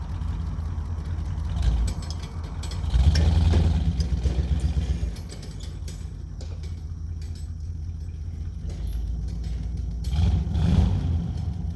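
Jeep J20 truck engine running under load, pulling metal posts out of the ground. It swells louder twice, about three seconds in and again near the end.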